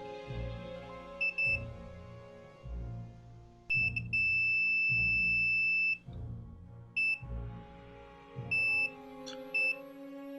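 Multimeter continuity tester beeping as its probes touch repaired circuit-board tracks: a few short beeps and one long steady beep of about two seconds, each beep a sign of a connection across the track. Background music plays underneath.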